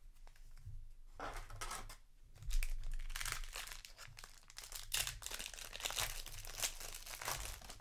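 Foil wrapper of a Magic: The Gathering set booster pack crinkling and tearing as it is ripped open by hand, starting about a second in.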